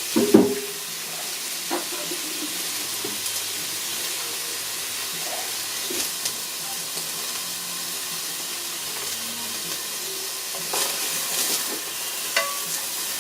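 Chopped onions sizzling as they sauté in hot oil in a pot, a steady hiss broken by a few knocks and scrapes of a stirring utensil, the loudest just after the start and a short run of them near the end.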